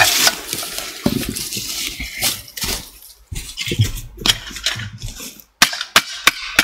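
Footsteps rustling and crunching through dry leaf litter and twigs on the forest floor. Near the end come sharp knocks, about three or four a second, as a stick pounds dried chaga fungus on a log to crush it into powder.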